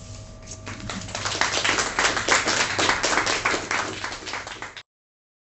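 Audience applauding. It swells from scattered claps in the first second into steady clapping, then cuts off abruptly near the end.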